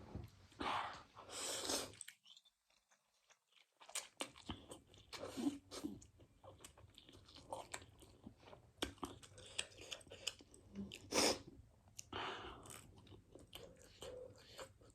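Close-miked chewing and biting of a meal of Korean noodles, egg and sausage: irregular wet clicks and short crunchy bursts, broken by about two seconds of silence near the start.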